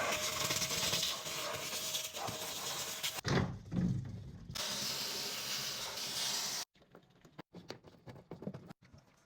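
Two long stretches of steady hiss, the first about three seconds and the second about two, with a few low knocks between them; the second stops suddenly, followed by scattered light clicks and knocks.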